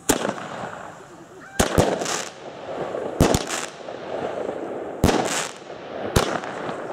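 Weco Midnight Burner 15-shot consumer firework battery firing five shots about a second to a second and a half apart, each a sharp launch bang followed by a short hissing trail.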